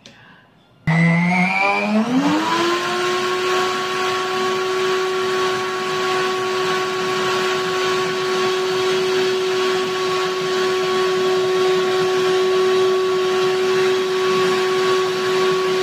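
High-speed countertop blender switching on about a second in, its motor whine rising quickly to full speed and then running steadily as it grinds baked almonds into almond butter.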